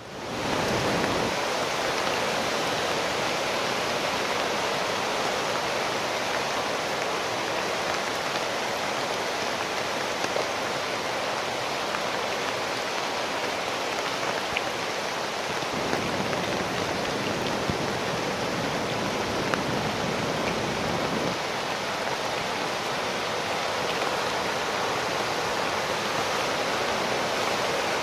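Floodwater rushing down the Verdugo Wash storm channel as a steady, even rush.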